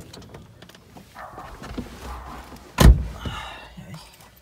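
A door shuts with a single loud slam about three seconds in, preceded by softer shuffling and handling noise.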